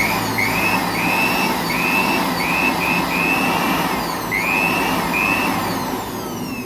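Rebuilt Tata 407 turbocharger being spun up for a bench test after a repair-kit change: a whistling whine that swoops up and down in repeated short rises over a steady rushing hiss, then winds down with falling pitch near the end.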